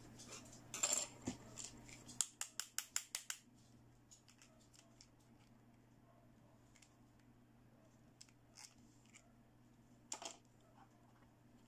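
Hard plastic toy pieces, a toy toothbrush and toy toothpaste tube, clicking and tapping as they are handled. About two seconds in there is a quick run of about ten light clicks, then only sparse faint ticks, and a pair of sharper clicks near the end.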